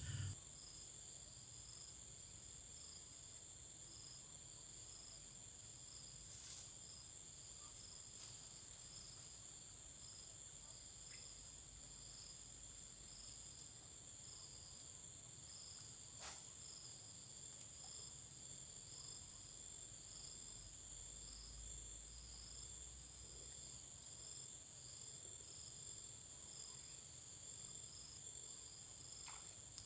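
Insects, crickets, singing in a steady high-pitched chorus, with one call pulsing about once a second. Two faint clicks sound, about a third and a half of the way through.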